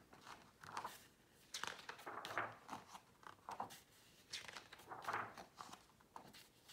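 Pages of a picture book being turned and handled: a series of faint paper rustles and swishes.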